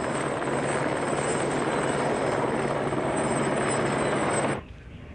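Steady machine noise with a low hum running under it. It cuts off suddenly near the end.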